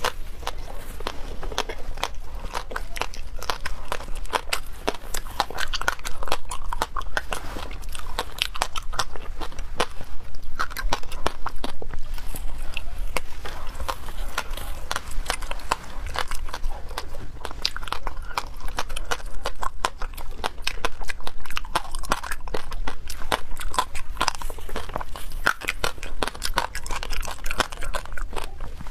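A person biting and chewing a frozen slab of shaved ice. A dense, unbroken run of crisp cracks and crunches.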